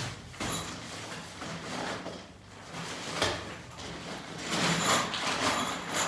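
Rustling and sliding of nylon tent fabric as a rolled Decathlon Quechua MH100 tent is pulled out of its carry bag. There is a sharp click about three seconds in, and the rustling is loudest near the end.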